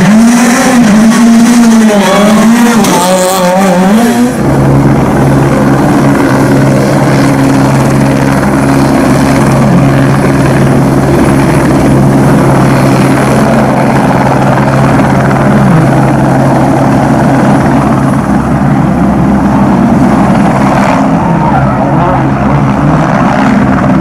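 Loud rally car engines. For about four seconds an engine revs up and down through a bend, then there is a sudden change to a steady droning engine note that holds for the rest, with a few slight dips in pitch.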